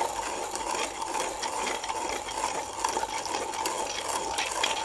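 Comandante C60 hand coffee grinder being cranked steadily, its burrs making a continuous grinding noise.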